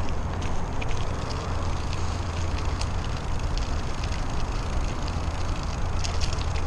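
Trek Domane AL 2 road bike rolling over a dirt-and-gravel trail, heard from a camera on the rider: a steady low rumble of wind and ride vibration on the microphone, with scattered crackles of grit and small stones under the tyres.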